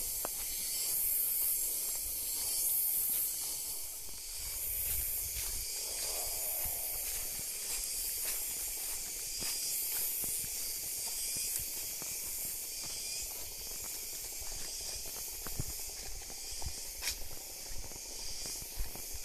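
Forest ambience dominated by a steady high-pitched hiss that swells and fades. Under it a chainsaw runs faintly in the distance, with a brief swell about six seconds in.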